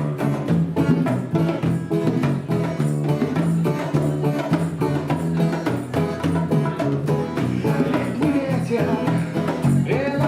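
Live band playing an instrumental passage of a song: strummed guitar chords over a steady drum beat.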